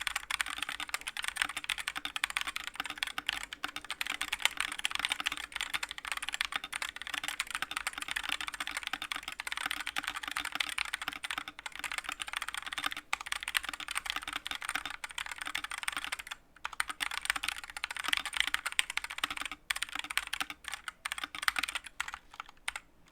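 Fast, continuous typing on a Dierya x Kemove DK61 mechanical keyboard with Gateron optical brown switches and stock PBT keycaps. The keys clack in a dense stream, broken by a few short pauses in the second half.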